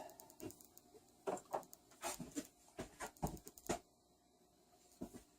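Faint, scattered clicks and light taps, about a dozen, from tools and small engine parts being handled on a workbench.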